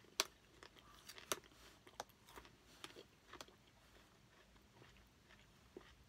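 Quiet chewing of a soft, juicy piece of fruit: a run of short, wet mouth clicks and smacks, most of them in the first three and a half seconds, fewer after.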